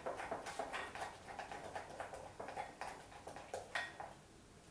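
Spoon stirring thick gram-flour batter in a glass bowl: quick repeated wet strokes and light scrapes of the spoon against the glass, about four or five a second, with a sharper click near the end as the stirring stops.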